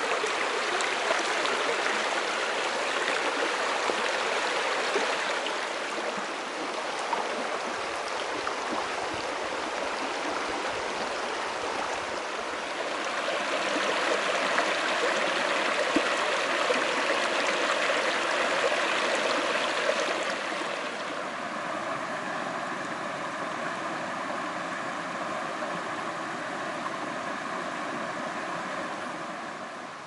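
Mountain stream rushing and splashing over rocks: a steady hiss of water that swells and eases a few times.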